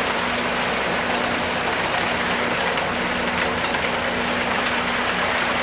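Water and trout gushing out of a stocking truck's tank into a pond: a steady splashing rush, with a steady low hum underneath.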